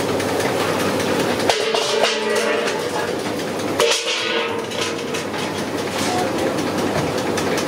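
Hot oil sizzling steadily in large iron kadais as sweet vadas deep-fry and fresh rounds of batter are dropped in by hand, with a sharper knock about a second and a half in and another near four seconds.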